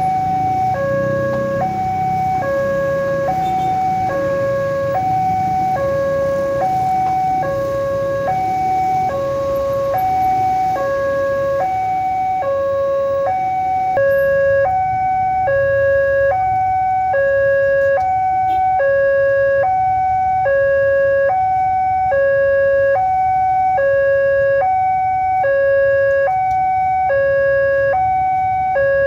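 Railway level-crossing warning alarm sounding continuously, two electronic tones alternating high and low in an even rhythm, the signal that a train is about to pass.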